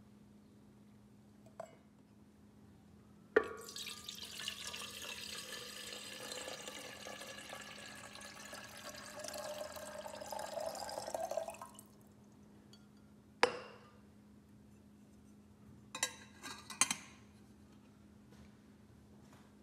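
Water poured into a stainless steel gooseneck kettle for about eight seconds, the pitch of the filling rising toward the end. It starts with a sharp knock, and a clunk and a few light clinks of metal and glass being handled follow it.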